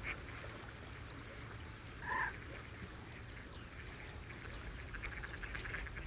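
Mallard giving a single short quack about two seconds in, over a faint steady background.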